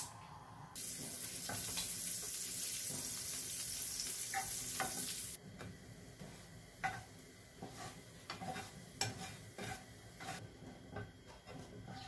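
Bread sizzling in butter in a hot non-stick frying pan; the sizzle starts abruptly about a second in and cuts off suddenly at about five seconds. After that, a wooden spatula scrapes and taps against the pan several times.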